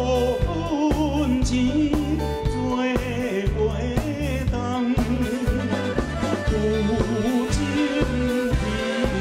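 A man singing a Taiwanese Hokkien ballad with vibrato into a microphone, over a live band with a steady bass beat.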